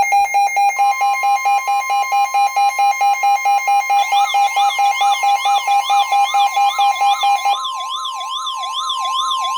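Two NOAA weather radios, a Midland WR120 and an Emerson Smart Set, alarming for an incoming severe thunderstorm warning. A fast pulsing beep and the broadcast's steady 1050 Hz warning alarm tone are joined about four seconds in by a rising-and-falling siren warble. The pulsing beep stops near the end, leaving the warble and the steady tone.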